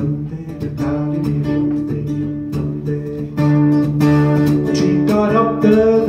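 Acoustic guitar strummed and picked steadily as a folk-song accompaniment, growing louder about halfway through.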